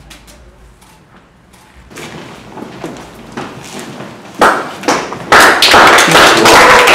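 Audience applause starting: a few scattered claps, building into loud, dense applause from about five seconds in.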